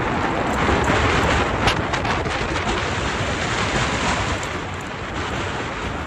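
Strong wind buffeting the microphone: a loud, steady rushing noise.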